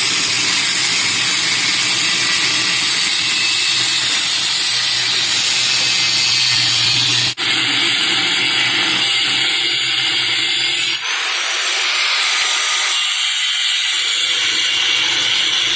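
Angle grinder cutting through the hermetic steel shell of a reciprocating fridge compressor: a loud, steady hissing grind, broken for a moment about seven seconds in.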